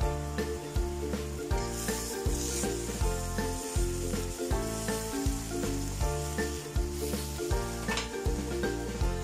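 Background music with a steady beat, over pork belly pieces sizzling in a hot wok as they give off their own water, turned with a wooden spatula. The sizzle swells briefly about two seconds in and again near the end.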